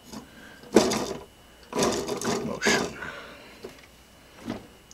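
3D-printed plastic clock frame and gears being handled and fitted together: a sharp clack about a second in, then two rattling, scraping bursts around two seconds, and a softer knock near the end.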